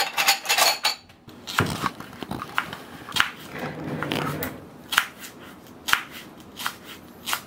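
Kitchen knife slicing the white stalk of a green onion on a plastic cutting board: single sharp taps of the blade striking the board, roughly one every half second to second.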